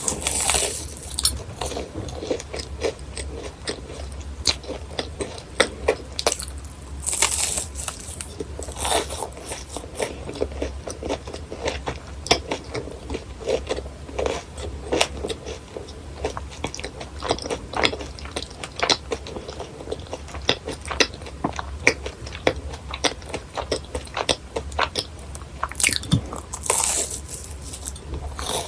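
Close-miked biting and chewing of crisp fried churros: a steady run of sharp crackling crunches, with a few louder, longer crunching bites.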